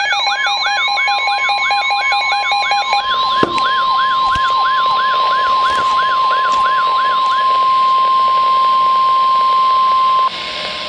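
NOAA Weather Radio 1050 Hz warning alarm tone, one long steady tone that cuts off suddenly near the end. Over it, two weather alert radios sound their own alarms: a warbling siren of about three sweeps a second, which fades out about two-thirds of the way through, and a fast alternating two-pitch beep that stops about 3 s in. After the tone ends, only radio hiss is left.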